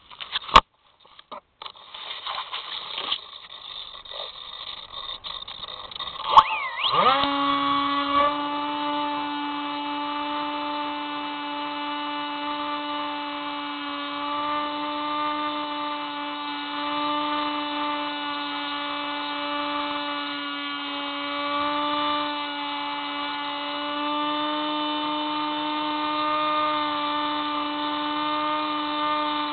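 Small electric RC plane's motor and propeller, heard through the onboard camera. After a few sharp knocks and rustles, the motor spins up about seven seconds in with a quick rising whine. It then holds a steady buzzing whine in flight, swelling slightly now and then with throttle.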